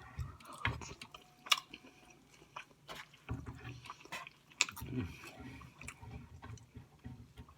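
A person chewing and biting into Chinese takeout food, with wet mouth sounds and scattered small clicks.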